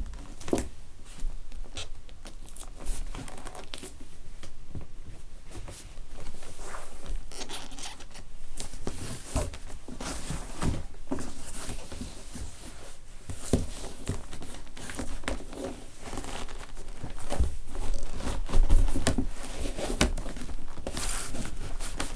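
Bare foot rubbing, pressing and stepping on a leather lace-up lineman work boot lying on a wooden floor: irregular scuffing and crinkling of leather with soft knocks, louder for a few seconds near the end.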